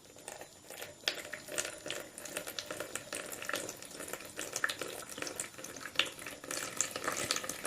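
Sour lemon juice separated from homemade yogurt trickling and splashing out through a small knife-cut hole in a bottle as it drains.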